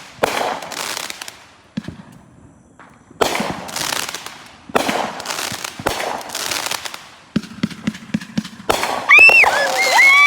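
Aerial fireworks bursting: about four large booms, each trailing off in crackle, then a string of sharp crackling pops. Near the end come loud whooping cheers.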